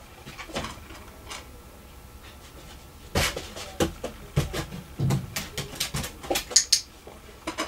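A dog's paws and claws tapping and knocking on a metal case as it steps onto it and shifts its feet, in a run of sharp taps starting about three seconds in, with a duller knock near the middle.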